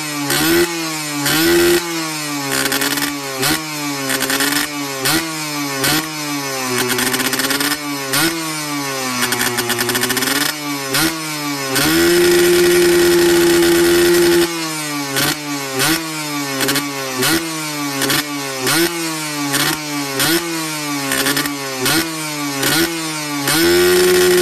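Yamaha 125ZR's two-stroke single-cylinder engine revved through an aftermarket barrel exhaust in quick repeated throttle blips, a little over one a second, each rising and falling in pitch. About halfway through, the revs are held high and steady for a couple of seconds before dropping back. They are held high again near the end.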